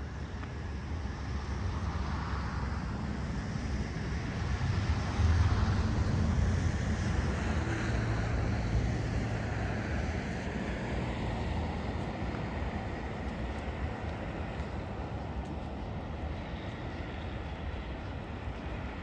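A motor vehicle passing by, a rumble and hiss that grows loudest about five seconds in and then slowly fades.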